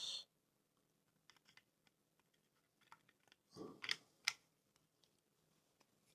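Faint plastic clicks and taps of a model locomotive's body shell being handled and fitted onto its chassis, with a soft rustle and two sharper clicks about four seconds in.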